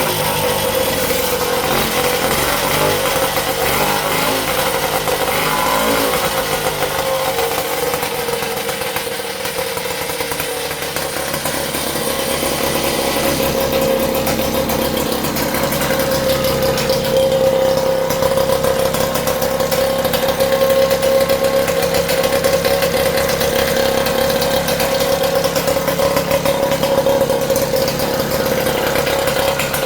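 Tecumseh HSK870 single-cylinder two-stroke snowblower engine on a mini bike, running steadily at a fairly constant speed. Its pitch wavers a little early on, and it dips briefly in loudness about ten seconds in.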